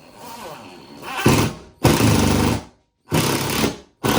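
Power drill driving a screw into the wall: the motor winds up with a rising whine, then runs in several short bursts with brief stops between.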